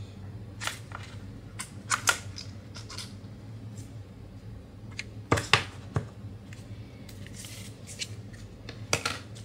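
Apple Pencil Pro's cardboard packaging being handled: scattered light taps and clicks of the card, the loudest cluster a little past halfway and another near the end, with a brief sliding rustle of paper or card just after the middle. A faint low hum runs underneath.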